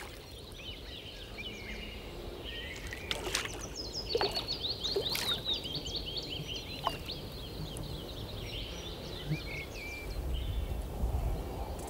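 Small songbirds chirping and trilling, with a quick run of trills in the middle, and a few short water splashes from a hooked bream thrashing at the surface.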